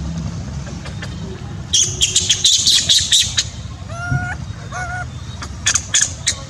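Animal calls over a steady low hum: rapid clusters of sharp, high squeaks, the longest about two to three seconds in and another near the end, and two short squawking calls that bend in pitch a little before and a little after the four-second mark.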